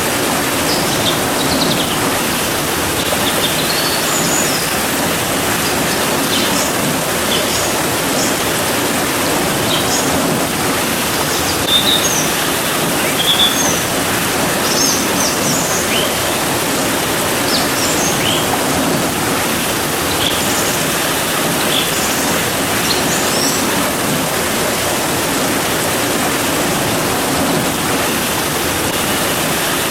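Steady rain falling as a dense, even hiss, with small birds chirping now and then over it.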